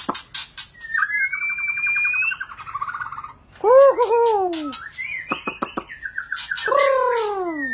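Caged racket-tailed drongo singing a varied run: sharp clicks, then a rising whistle over a buzzy rattle from about a second in, a loud down-sliding call near four seconds, more clicks and whistles, and a second down-sliding call near the end.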